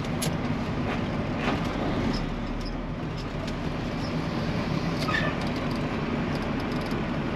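Peterbilt 379 semi truck's diesel engine running steadily, a low, even hum.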